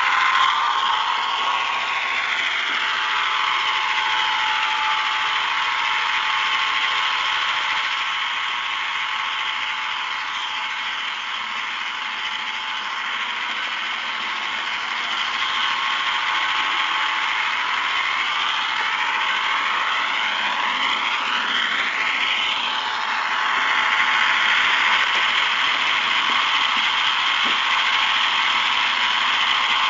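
Model train running along the track: its small electric motor and gears whine with a steady rattle of wheels on the rails, and the whine glides up and down in pitch in places.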